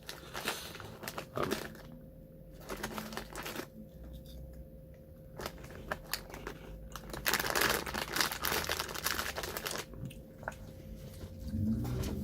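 Crunching and crinkling as a crispy corn potage snack is eaten: irregular crisp crackles, busiest about two-thirds of the way through.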